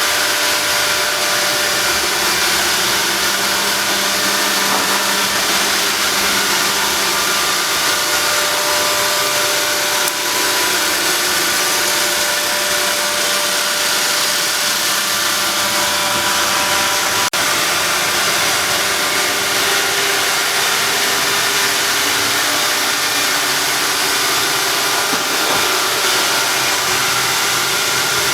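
Robot vacuum cleaner running steadily, its motor and brushes making a constant whirring hiss with a faint whine. A single sharp click sounds about 17 seconds in.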